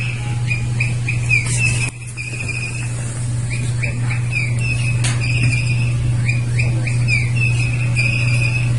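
Toy bird's chirping call sounding over and over in quick runs of short, high chirps, over a steady low hum.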